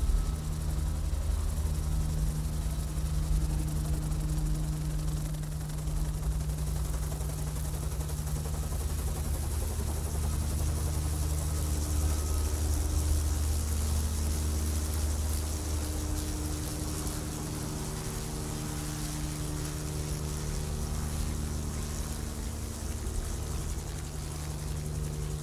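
A steady, low engine drone: a deep hum with a few held tones above it and a hiss on top, easing slightly in loudness in the second half.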